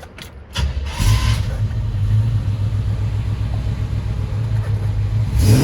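Chevrolet 350 V8 with a custom MagnaFlow-muffled exhaust starting up: a few clicks of cranking, the engine catching about half a second in, then settling into a steady, low idle that begins to rev near the end.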